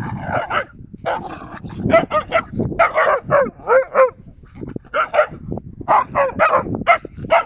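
Yakutian laikas play-fighting, giving short high barks and yips in quick runs of several a second.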